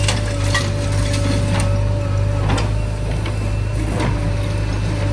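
Heavy diesel machinery engine running steadily, with scattered metallic clanks and knocks from the working machine.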